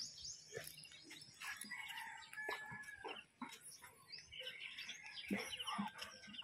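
Faint bird calls: short chirps and quick rising and falling notes, with one brief held whistle-like note about halfway through and a few soft clicks.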